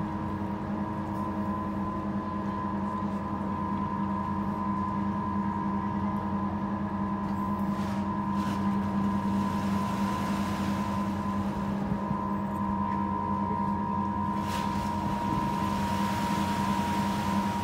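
Boat lift machinery running as the water-filled caisson rises: a steady hum with a higher steady whine. A faint hiss swells twice over it, around the middle and near the end.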